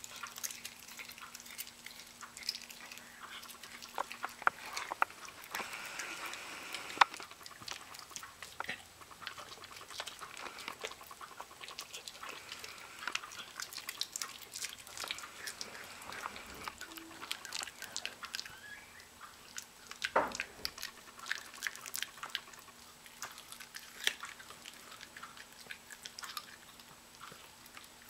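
A Miniature Pinscher chewing and biting raw chicken: irregular crunching and chomping, with a few louder sharp crunches.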